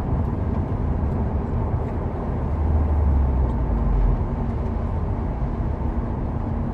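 Cabin noise inside a 2015 Subaru WRX: the car's turbocharged flat-four engine making a steady low drone under a haze of road noise, easing slightly about halfway through.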